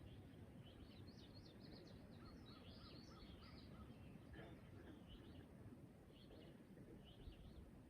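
Faint morning birdsong: several birds giving short chirps and quick trills, with a run of about five evenly spaced notes near the middle, over a steady low rumble.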